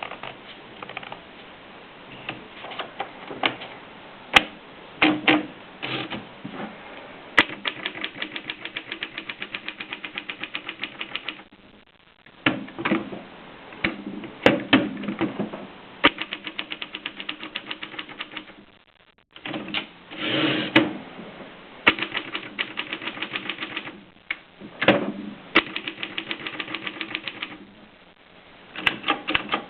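Mercedes Superba typewriter being typed on: sharp, irregular keystroke clacks mixed with several runs of rapid, even ticking, with two short pauses.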